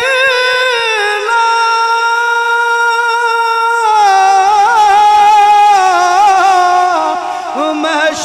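A man sings a Punjabi manqabat (devotional praise song) into a microphone. He holds one long steady note for a few seconds, then breaks into a wavering, ornamented run that slides gradually lower.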